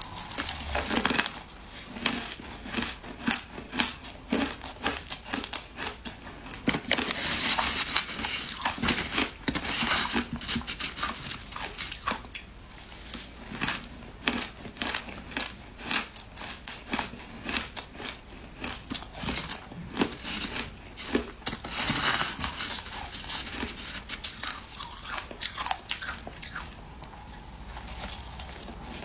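A person biting and chewing mouthfuls of shaved ice, heard close up as a dense run of sharp, crackling crunches. The crunching grows louder for a few seconds around a quarter of the way in and again about three-quarters of the way in.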